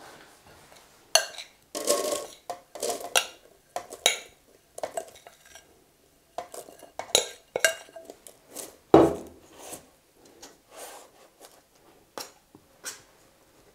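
A metal spoon scraping and clinking against a glass bowl in irregular strokes, with a heavier knock about nine seconds in, as a buttery biscuit-crumb cake base is spooned out and pressed down.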